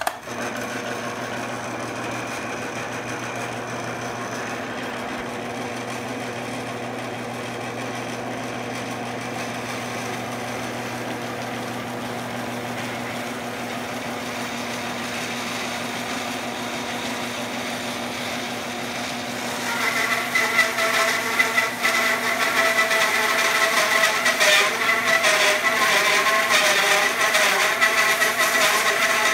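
Homemade belt-driven bandsaw mill with a 1/3 hp electric motor starting up and running steadily with its band blade spinning. About twenty seconds in the 3 TPI blade bites into a block of timber and the sound gets louder, with a wavering high whine as it saws slowly through the wood.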